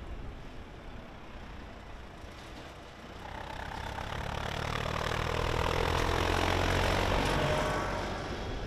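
Farm tractor engine passing close by, growing louder about three seconds in, loudest a few seconds later, then fading near the end.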